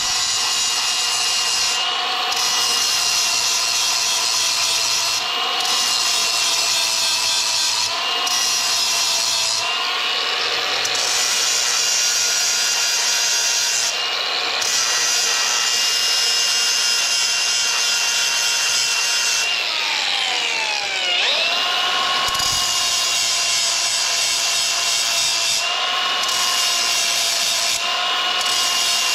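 Cordless Milwaukee M18 angle grinder running with a steady high whine as its wheel grinds the carbide teeth on a stump grinder's cutter wheel, sharpening them. The grinding hiss breaks off briefly every few seconds, and about two-thirds of the way through the motor slows and speeds back up once.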